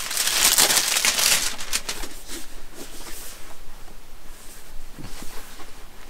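Plastic shrink wrap crinkling and rustling as it is torn and peeled off a small boxed camera, loudest in the first two seconds and then fainter.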